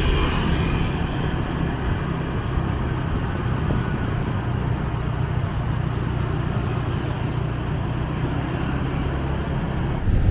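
Steady engine hum and road noise of a vehicle moving through city traffic.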